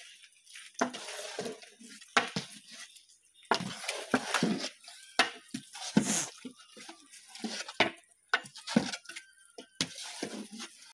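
Long-handled metal ladle scraping and knocking against the sides of a large metal pot while stirring a thick masala, in irregular strokes.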